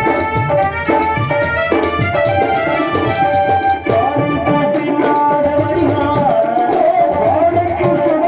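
Tamil stage-drama music. An electronic keyboard plays a melody over steady tabla strokes, and from about four seconds in a singer carries a long, wavering melodic line over the accompaniment.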